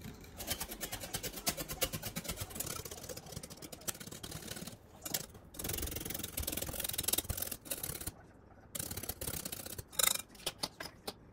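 Wire balloon whisk beating thickening fresh cream by hand in a glass bowl: fast, even strokes of the wires swishing through the cream and ticking against the glass, with a short pause about five seconds in and another near eight seconds.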